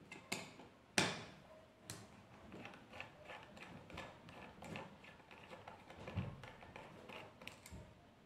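Small precision screwdriver turning a tiny screw in an opened laptop hard drive, faint irregular metallic clicks and scrapes, with one louder click about a second in.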